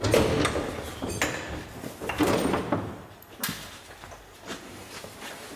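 Knocks and clanks of a metal bus bonnet panel being unfastened and lifted off, with several sharp knocks in the first three and a half seconds and quieter handling after.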